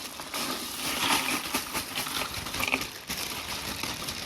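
Ice being refilled into a cooler: an irregular clatter of many small strikes, like cubes knocking against each other and the cooler.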